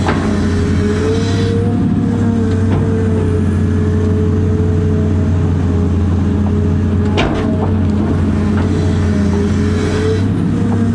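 Cat 330 excavator's diesel engine running steadily under working load, heard from the operator's cab, with a steady higher whine over the engine hum. Two sharp knocks, one right at the start and one about seven seconds in, as the bucket works the backfill dirt.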